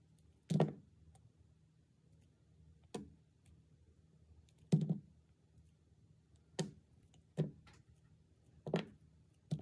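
Snap-off utility knife blade cutting through a clear soap block with heart-shaped pieces set in it: about seven short, crisp cuts, a second or two apart.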